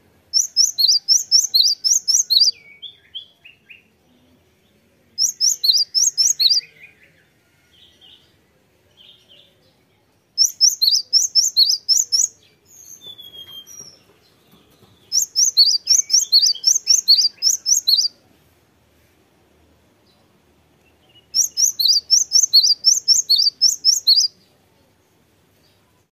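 Cinereous tit singing: five bouts of rapidly repeated, high, sweeping notes, about five a second, each bout lasting two to three seconds, with a few softer, lower calls in the pauses between them.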